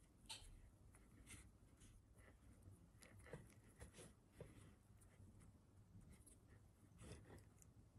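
Faint, soft scratchy rustles of fingers pinching and folding pastry dough on a wooden board, over a low steady room hum.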